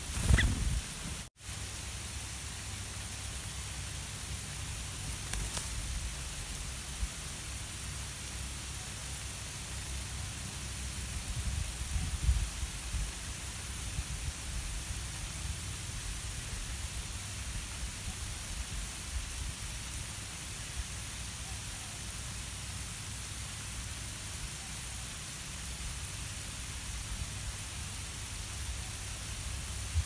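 Steady outdoor background hiss with a low, uneven rumble of wind on the microphone, and no clear bird calls. A short bump at the very start is followed by a brief dropout to silence about a second in.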